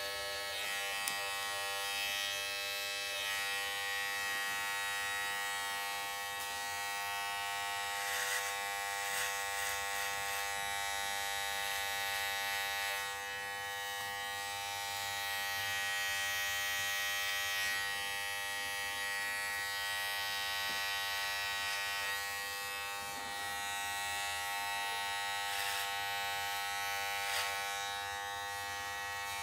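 Corded electric hair clipper running with a steady buzzing hum, its pitch holding even throughout, with a few brief scratchy touches as it works over a child's short hair.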